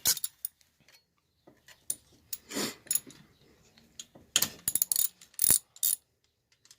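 Metal hand tools working on the valve adjusters of a Honda 300EX engine: sharp metallic clicks in quick clusters, like a ratchet or wrench on the adjuster locknut, with a short rasp about two and a half seconds in.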